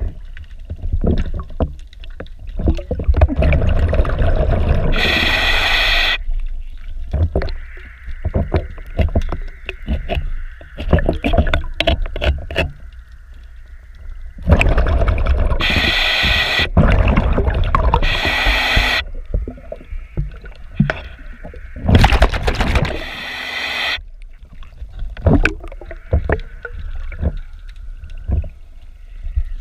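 Underwater sound of a scuba diver's regulator: hissing inhalations of about a second each, several times, and rumbling, gurgling exhaled bubbles in between. Short scraping clicks come from a hand scraper against the barnacle-fouled hull and propeller.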